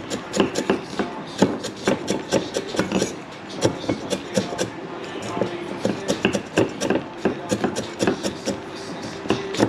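Chinese cleaver chopping shallots and garlic on a thick round wooden chopping board: quick, uneven knocks, several a second, with a brief lull about three seconds in.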